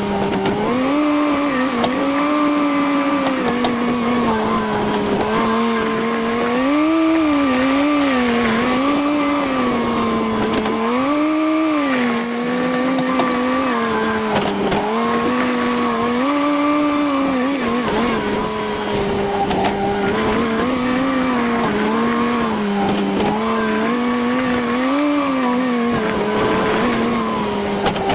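Tractor engine running steadily, its pitch rising and falling every second or two as the load changes.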